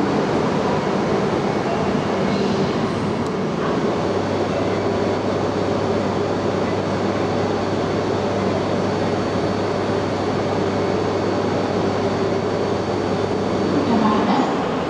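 E926 East-i Shinkansen measurement train standing at the platform, a steady electrical and mechanical hum from its equipment with no rise or fall in pitch. A low steady tone comes in a few seconds in.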